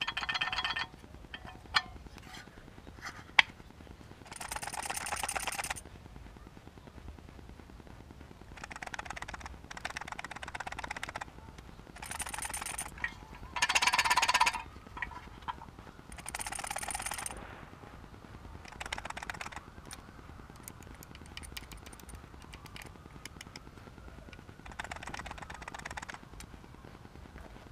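LED light bar giving off a crackling buzz that comes and goes in bursts of one to two seconds, about nine times, with a couple of sharp clicks near the start.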